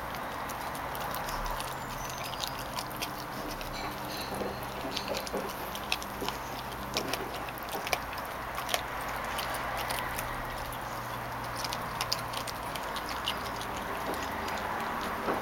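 Eight-week-old Labrador puppy chewing and gnawing a raw chicken leg: irregular sharp clicks of teeth on meat and bone, coming in clusters.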